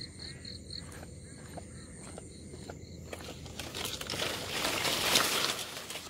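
Leaves and brush rustling as someone pushes through dense vegetation on foot, building to its loudest about five seconds in.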